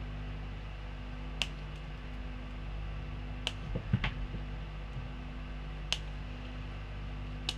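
Steady low hum of the workbench, with five sharp clicks and a soft knock near the middle as small tools and parts are handled while speaker wires are readied for tinning.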